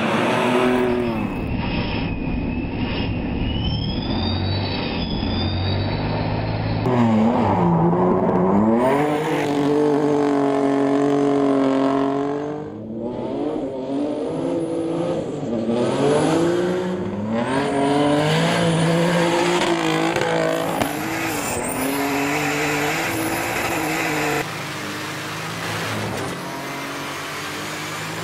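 Hyundai Genesis Coupe hill-climb race car's turbocharged engine revving hard, pitch climbing and falling off again through gear changes, over tire and gravel noise as the car slides on a dirt road. The sound jumps abruptly several times between passes.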